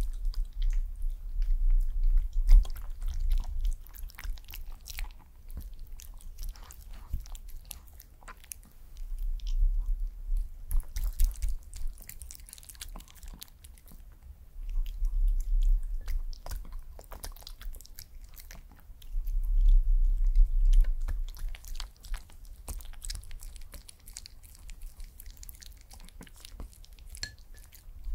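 A white Pomeranian chewing and biting soft rice cake, dumpling and meat pieces from a spoon, close to the microphone, with small crunches. The chewing comes in four louder bouts with quieter pauses between.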